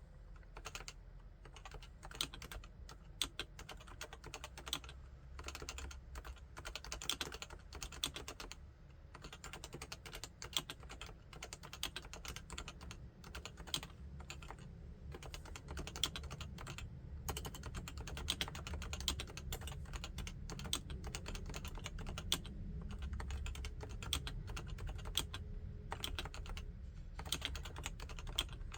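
Typing on a Topre Realforce 87U tenkeyless keyboard with 55 g Topre electrostatic capacitive switches: a continuous run of keystrokes that gets denser and slightly louder in the second half.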